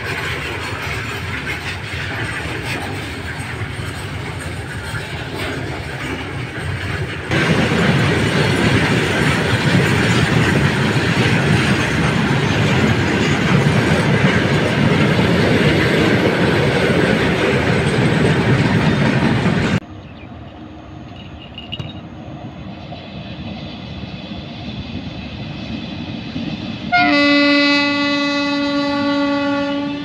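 Open freight wagons of a goods train rolling past on the rails, a steady rumble and clatter of wheels that jumps louder about seven seconds in and drops sharply about twenty seconds in to a fainter train running in the distance. Near the end a WAP-7 electric locomotive's horn sounds one steady blast of about three seconds.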